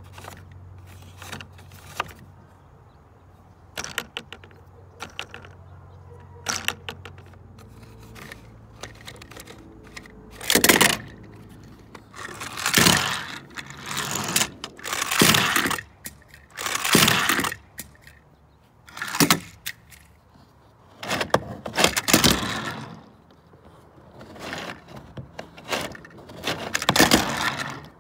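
Plastic toy handling: a Lightning McQueen toy car being rolled and knocked about a plastic playset. Scattered clicks at first, then from about ten seconds on a string of short, loud rattling and clattering runs, each about a second long.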